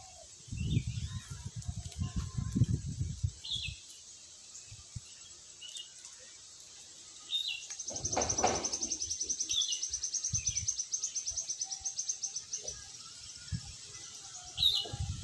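Outdoor ambience: scattered short bird chirps, and a fast, high-pitched pulsing trill that runs for several seconds through the middle. Low rumbling fills the first few seconds, and a brief louder noise comes about eight seconds in.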